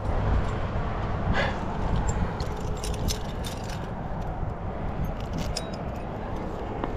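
Metal climbing gear (carabiners on a harness rack) clinking and jingling in two short spells, about two seconds in and again about five seconds in, as the climber moves. Underneath is a steady low rumble of wind on the microphone.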